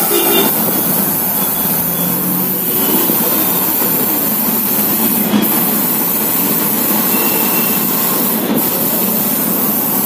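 Compressed air rushing into a motorcycle tyre through an inflator hose with a pressure gauge, as a steady loud hiss. Two short clicks come about halfway through and again near the end.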